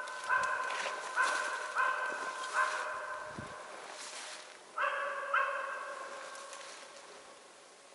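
West Siberian Laika hunting dog barking out of sight: a run of four barks, a pause, then two more about five seconds in, each bark trailing off.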